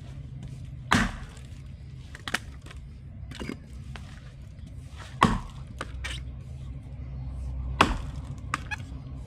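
Felling axe chopping into a knotty log: three heavy blows about two and a half seconds apart, with lighter knocks between. The dense wood at the knot is not splitting.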